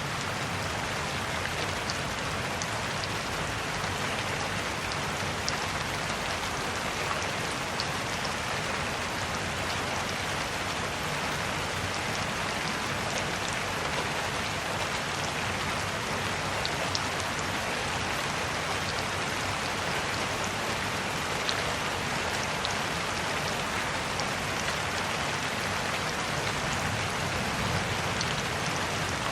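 Steady rain falling, a continuous even patter with scattered sharper drops.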